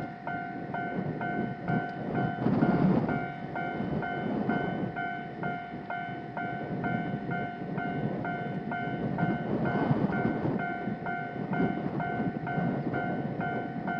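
Japanese level crossing's electronic warning bell ringing in a steady fast repeat, about three strokes a second, over the rumble of a passing train that swells about three seconds in and again near ten seconds.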